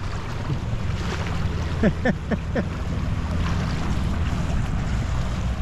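Small outboard motor on an inflatable dinghy running steadily as it approaches across shallow water, with wind buffeting the microphone and small waves lapping. A few short high calls break in about two seconds in.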